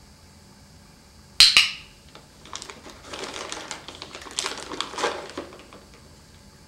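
A sharp click about a second and a half in, then about three seconds of dense small crackles and crinkles as the Bengal cat takes a treat at the treat bag.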